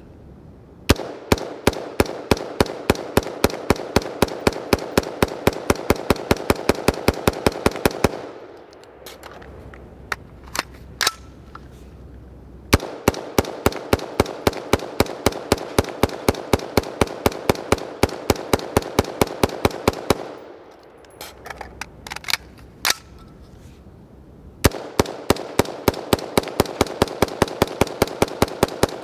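A BCM AR-15 in 5.56 with a mid-length direct gas impingement system, not cleaned or lubricated, firing rapid strings of shots at about five a second. Two pauses with a few clicks fall about 8 and 20 seconds in, where a magazine is changed.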